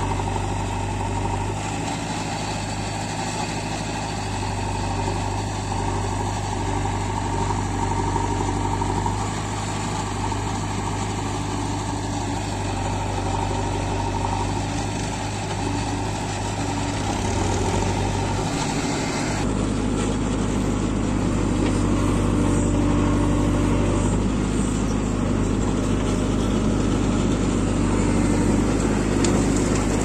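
Diesel engine of a JCB 3DX backhoe loader running steadily as its backhoe digs and loads soil into a tractor trolley; the sound shifts about two-thirds of the way in.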